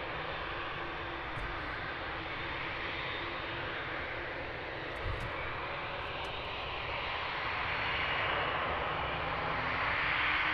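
Twin-engine jet airliner's engines running as the aircraft rolls along the runway: steady engine noise that grows louder over the last few seconds. There is a brief low thump about halfway through.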